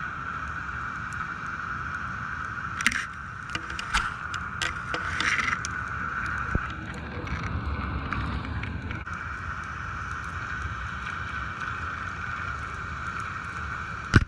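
Steady hum of a fishing boat's engine, with a run of sharp clicks and knocks about three to six seconds in and another just before the end.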